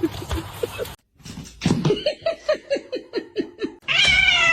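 A rapid run of short, falling-pitched calls, about four a second, then about four seconds in a loud, drawn-out cat meow that slides down in pitch.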